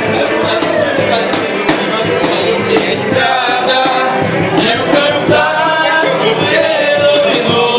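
Men singing a sertanejo-style song together over music, loud and continuous.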